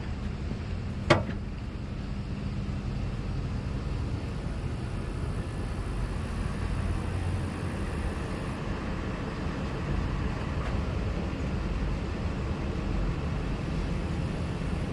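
Heavy equipment engine running at a steady low drone, with a single sharp knock about a second in.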